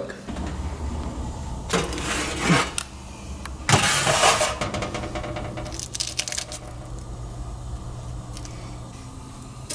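A metal baking sheet is pulled out of the oven and set down on the stovetop, with handling clatter. The loudest noise comes about four seconds in, and a low steady hum runs underneath.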